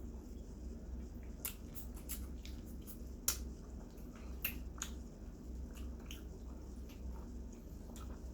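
Close-up wet chewing and lip-smacking clicks of someone eating roasted chicken, with scattered short sharp smacks, the loudest about three seconds in.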